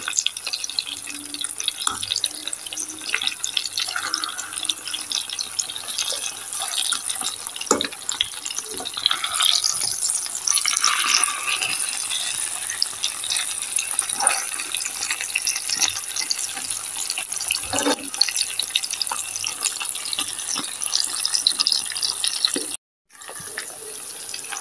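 Floured chicken breast pieces sizzling and crackling in hot oil in a frying pan as they are turned over with a fork to fry the other side, with a few light knocks of the fork against the pan. The sound breaks off for a moment near the end.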